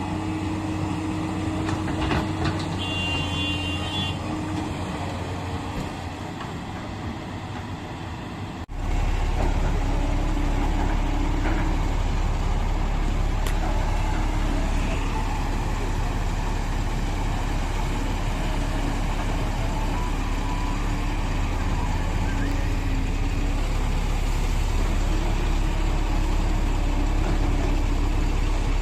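Heavy diesel machinery engines running steadily, with a short high beep or horn toot about three seconds in. Near nine seconds the sound changes abruptly to a louder, steadier engine drone.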